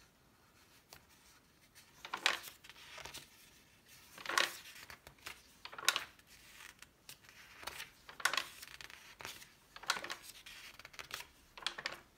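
Glossy magazine pages being turned and smoothed by hand: about half a dozen brief paper swishes and rustles.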